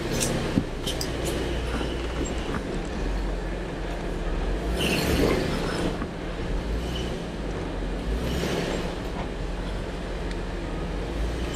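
Off-road 4x4's engine running low and steady as it crawls over rocks, with a couple of short noisy swells partway through.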